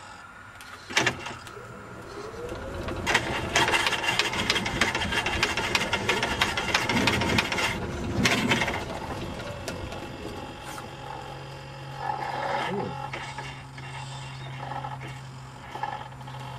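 Radio-controlled EZGO golf cart moving across grass, its remote steering mechanism turning the wheel: a sharp click about a second in, a dense mechanical rattle from about three to nine seconds, then a steady low hum.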